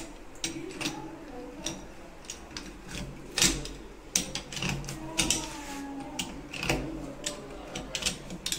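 Metal clicks and knocks of a pipe wrench being set and worked on a bib tap's brass head, with sharper clanks about three and a half and about seven seconds in. The wrench is loosening the tap's head to get at its worn washer.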